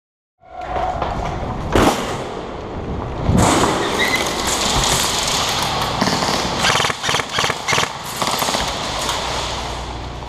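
Loud, noisy scuffing and rustling of a player moving with a head-mounted camera during an indoor airsoft game. Several sharp knocks and cracks stand out, one hard knock about two seconds in and a quick string of cracks past the middle.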